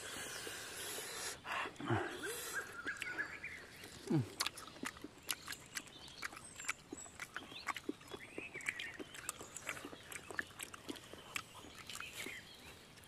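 Close-miked chewing and lip-smacking of people eating fried beetle larvae: a steady patter of small wet clicks, with two short sounds that fall in pitch about two and four seconds in.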